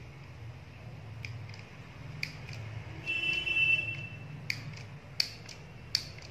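Handheld stapler-style mini sewing machine being pressed through cloth, one stitch per press, giving several sharp clicks at uneven spacing. About three seconds in, a buzzing tone sounds for about a second, the loudest thing here.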